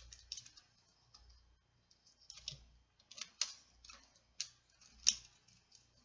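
Small, irregular clicks and ticks of a pointed metal tool working against the plastic body of a Kato No. 6 model-railway turnout as its parts are fitted back into place; the sharpest clicks come about three and a half and five seconds in.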